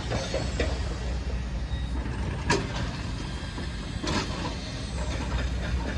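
Road traffic: a steady low engine rumble from a passing heavy vehicle such as a bus or lorry, with two short knocks partway through.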